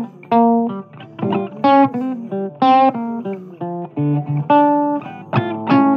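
Blues guitar playing an instrumental passage: a quick run of single plucked notes.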